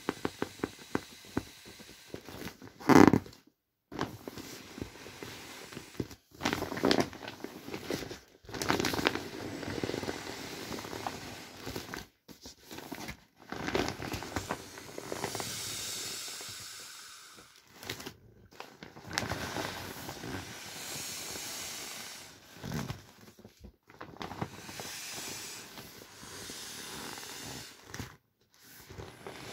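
Inflatable vinyl boats being squeezed flat by hand to deflate them: air rushing out in irregular stop-start gusts, with the vinyl crinkling and rubbing. A loud gust comes about three seconds in.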